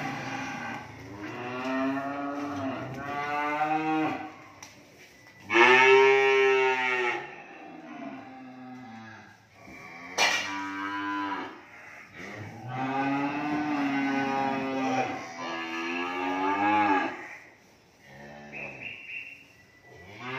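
Cattle mooing repeatedly: about eight long calls one after another, the loudest about six seconds in. A sharp knock sounds about ten seconds in.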